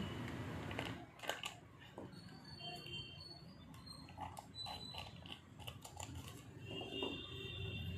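Scissors snipping through a plastic milk packet: faint scattered clicks and crinkles of the plastic.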